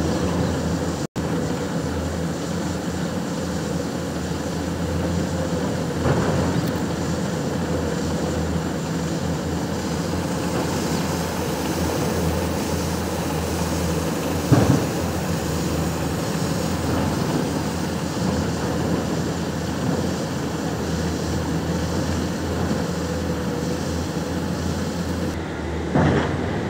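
Heavy diesel machinery running steadily: a low engine drone with a constant hum. A few short knocks come through about six seconds in, midway and near the end.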